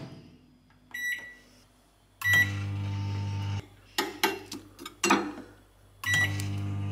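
Panasonic microwave oven keypad beeps, then the oven starts with a beep and runs with a steady low hum for about a second and a half. A metal spoon clinks and scrapes in a ceramic bowl. Near the end another beep, and the microwave hum starts again: the food is being heated in short bursts with stirring in between.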